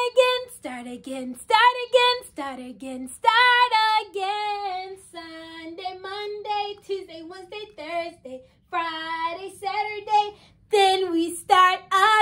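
A woman singing a children's song in a high, bright voice, phrase after phrase with short breaks, with no instruments heard.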